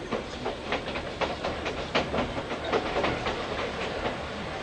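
Old-type passenger coach running on jointed track, heard from inside: a steady rumble with its wheels clicking over rail joints and rattling, about four clicks a second.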